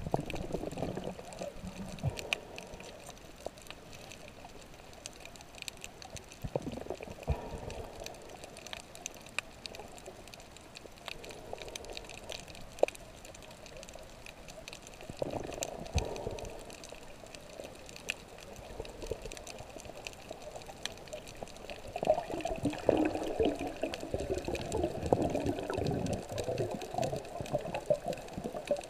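Underwater sound picked up by a GoPro in its housing: muffled water washing and gurgling against the camera, with scattered sharp clicks. The washing swells up several times, longest and loudest near the end.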